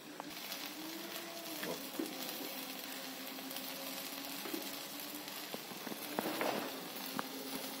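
Stuffed vegetable paratha cooking on a hot iron tawa, giving a faint steady sizzle. A low steady hum runs underneath, with a few light clicks.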